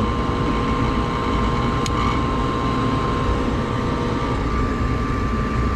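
Gas furnace running with a steady mechanical hum of its fans and burners, carrying a constant whine; one faint click about two seconds in.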